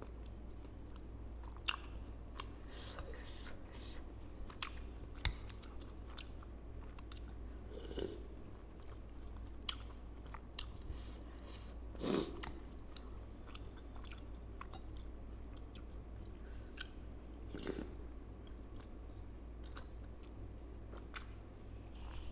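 Close-miked chewing and biting of bakso meatballs with crunchy bone bits, with scattered crisp crunches and clicks over a steady low hum. A louder burst comes about twelve seconds in.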